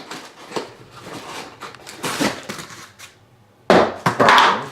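Plastic vacuum attachments and their packaging being handled: irregular rustling and clatter, with a louder, longer rustle near the end.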